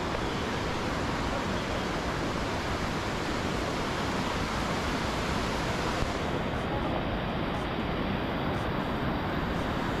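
Steady rushing of river water, an even noise without a break.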